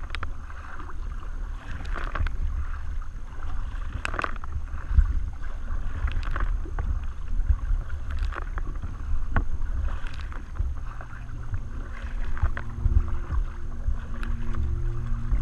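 Kayak paddle strokes splashing in choppy sea water, recurring every couple of seconds, over a steady rumble of wind buffeting the microphone.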